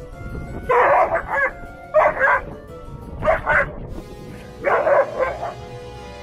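Doberman barking at a toy cockroach in four short bursts about a second apart, each a quick run of two or three barks, over steady background music.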